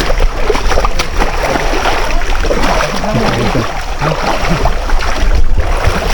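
Water splashing and running as mud is washed off in a stream, over a steady low rumble on the microphone, with faint voices in the background.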